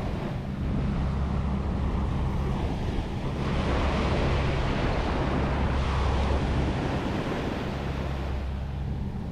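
Ocean surf washing onto a beach, with wind buffeting the microphone as a low rumble. The wash of the waves swells louder for a few seconds in the middle.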